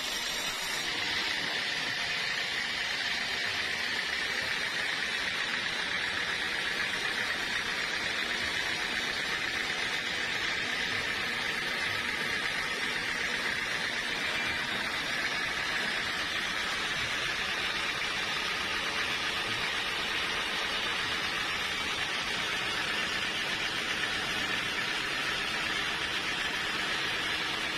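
Sawmill saw cutting teak wood: a steady, even hiss with a faint hum underneath, unchanging throughout.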